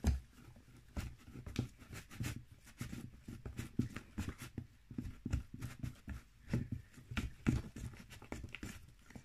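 Thick, sticky slime dough of shampoo, flour and salt being stirred and mixed in a bowl: irregular soft taps, knocks and squelches, several a second.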